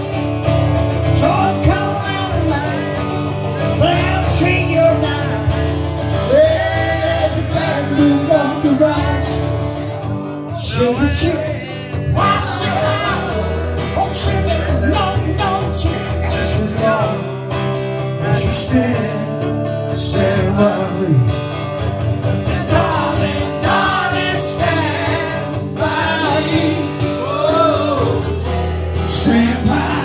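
A man singing live to his own acoustic guitar, his voice and guitar coming through a microphone and PA.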